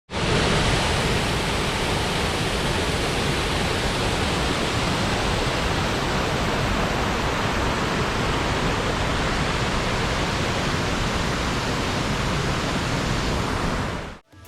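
Waterfall: a steady, even rush of falling water that cuts in and out abruptly.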